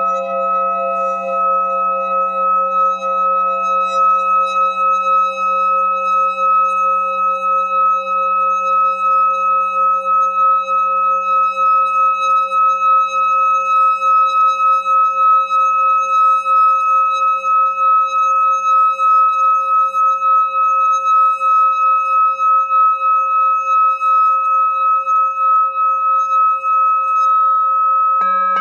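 A hand-held metal singing bowl sung by circling a wooden mallet around its rim: a sustained ringing tone of a few steady pitches with an even, wavering pulse.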